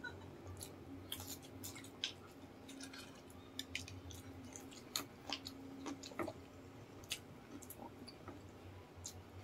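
Two people chewing crispy fried chicken skin and chicken feet. Quiet chewing is broken by many short, sharp crunches and crackles at uneven intervals.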